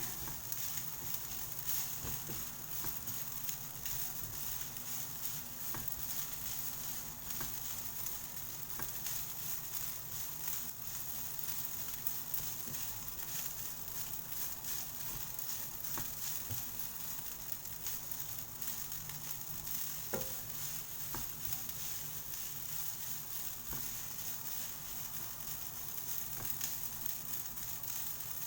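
Fried rice sizzling steadily in a hot pan as it is stirred, with a few sharp clicks scattered through.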